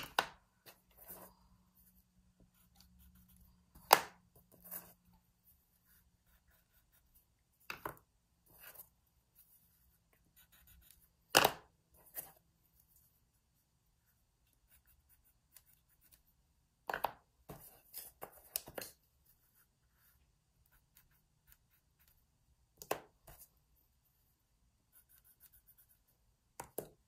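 Colored pencils clicking as they are picked up and set down on the table, a handful of sharp taps a few seconds apart. Between the taps come short, faint scratchy pencil strokes on paper as quick dashes are drawn for sprinkles.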